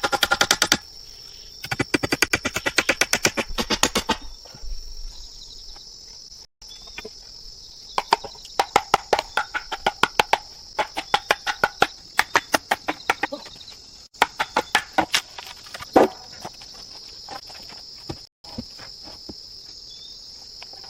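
Rainforest insects, crickets or cicadas, keeping up a steady high buzzing drone, broken by several bursts of rapid knocking, many hard taps a second, with the loudest single knock about 16 seconds in.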